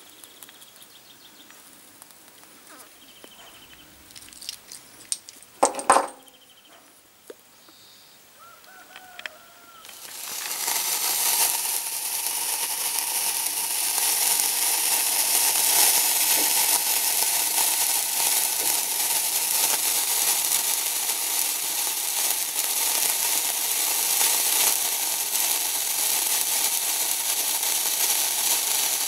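Hand-held sparkler burning with a steady, loud fizzing crackle that sets in about a third of the way in. Before it there are only a few faint clicks and one brief sharp knock.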